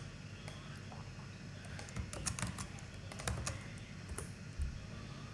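Computer keyboard keystrokes, a quick run of clicks bunched about two to three and a half seconds in and a few single taps after, as a command is entered into a terminal.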